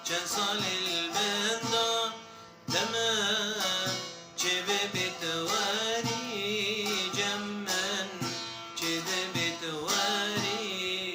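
Instrumental passage of a Kurdish folk song: a wavering melody over continuous accompaniment, with no singing.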